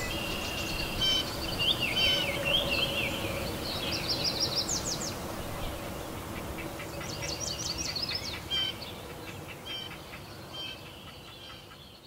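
Birds chirping and trilling in quick runs of high, thin notes, in several bouts, over a faint steady low hum that fades out near the end.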